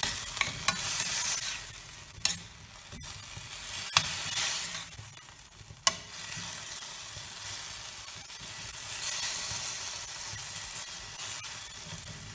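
Diced onion and tomatoes sizzling in a stainless steel frying pan while being stirred with a metal spoon. The hiss swells and eases with each turn, and the spoon clinks and scrapes against the pan several times in the first half.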